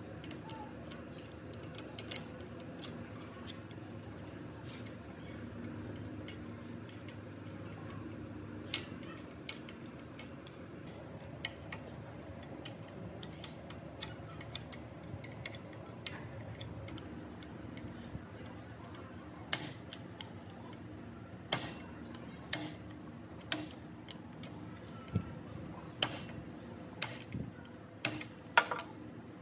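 Irregular light metallic clicks and taps of hand tools and metal machine parts being handled, sparse at first and more frequent in the second half, over a low steady hum.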